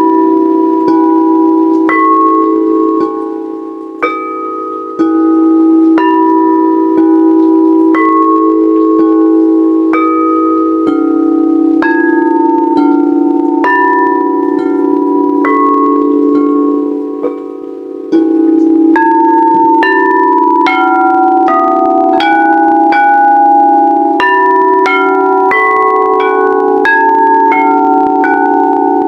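Sound bowls struck one after another, about once a second and faster in the second half, their ringing tones overlapping over a steady low hum from the bowls.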